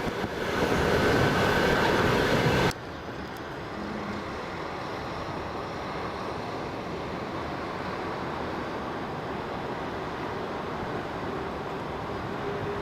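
Passenger train running on the rails, heard from its window. The noise is loud for the first few seconds, then drops abruptly to a steady, quieter rumble.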